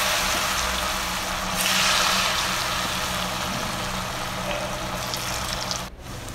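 Flour-coated raw potato sticks deep-frying in smoking-hot oil in a kadhai: a loud, steady sizzle that swells again about a second and a half in, then slowly dies down before cutting off near the end. This is the first fry, taking the potatoes to about 70% cooked before a second fry.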